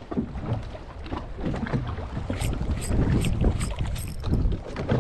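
Wind buffeting the microphone over the sound of a small boat at sea, with scattered knocks and a run of sharp clicks in the middle.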